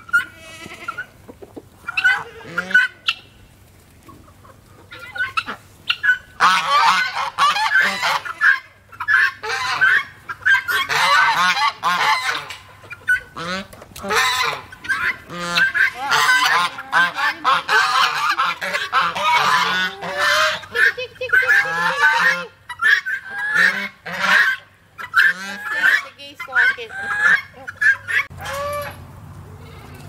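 Domestic geese honking over a mixed poultry flock, with chickens calling among them. The calls crowd together from about six seconds in to about twenty seconds, then come more sparsely.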